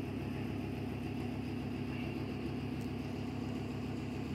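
Steady low machine hum with an even, fast flutter.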